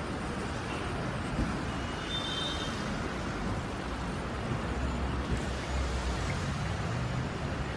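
Steady road traffic noise: cars and other vehicles idling and moving past, with a low engine rumble.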